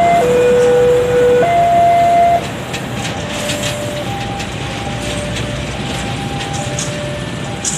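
Level-crossing warning alarm alternating between a low and a higher tone, about a second each. It drops in level about two and a half seconds in, after which softer alternating tones carry on. Under it is the steady rumble of a KAI diesel-locomotive-hauled train rolling past, with a few light clicks.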